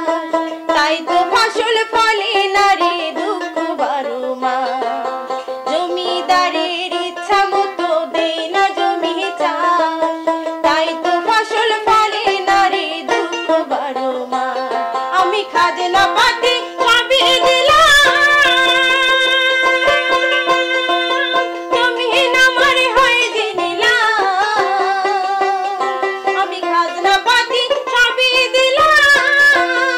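Dotara plucked in quick repeated strokes, accompanying a woman singing a Bengali Baul folk song, with long held notes in the middle.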